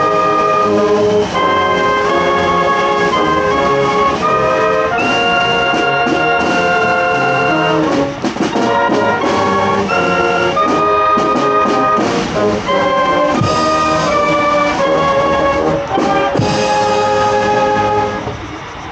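Live marching brass band playing: trumpets, trombones, saxophones and sousaphones in held chords that change every second or so, with snare drum strokes, growing a little softer near the end.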